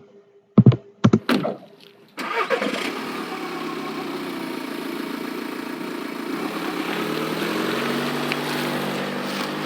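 Recorded car engine sound effect played back: the engine starts about two seconds in and keeps running steadily, getting somewhat louder a few seconds later.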